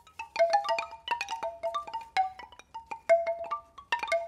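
Short logo jingle: a quick, uneven run of struck, bell-like pitched notes, each ringing briefly, with a denser flurry of notes near the end.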